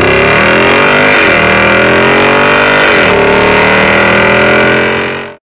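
Exhaust of a Jeep Wrangler Rubicon 392's 6.4-litre HEMI V8, heard close at the tailpipes while accelerating. The engine note climbs, drops at upshifts about a second in and again about three seconds in, climbs once more, then cuts off suddenly near the end.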